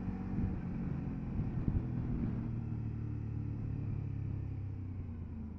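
Motorcycle engine running steadily while riding along, its note settling lower about halfway through.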